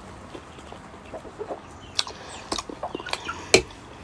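Chickens clucking in the background, with a few sharp clicks from eating in between, the loudest about three and a half seconds in.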